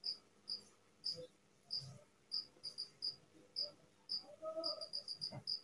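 Cricket chirping: short high chirps about half a second apart, turning in the last second into a quick even run of about six a second.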